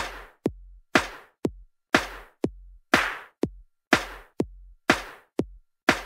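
Intro music made of a bare electronic drum-machine beat: a short low kick alternating with a sharper snare-like hit, about two hits a second.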